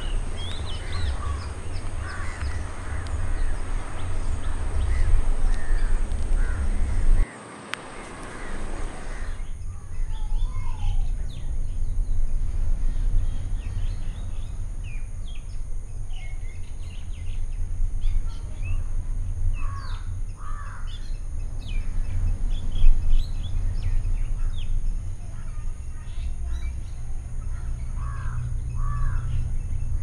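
Several birds calling, many short chirps and calls at different pitches, over a steady low rumble. The sound drops out briefly about seven seconds in, then the calls carry on over a quieter background.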